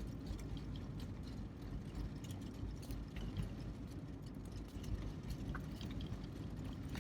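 Lada Niva's engine running, heard inside the cabin as a steady low rumble, with faint scattered ticks.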